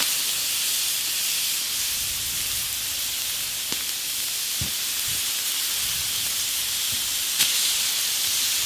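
Raw meat sizzling on hot stones: a steady hiss with a few faint pops and crackles.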